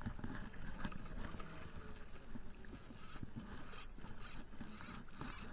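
Spinning reel working against a large hooked muskie, its mechanism making a rapid, ratchet-like ticking.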